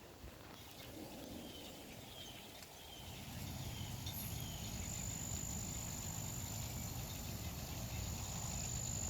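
An insect calls with a few short chirps, then one steady high-pitched buzz that starts about four seconds in and holds. A low, steady rumble runs underneath it.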